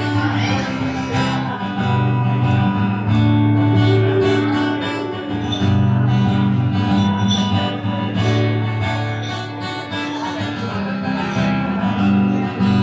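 Acoustic guitar strumming chords in an instrumental break of a country song, with no singing.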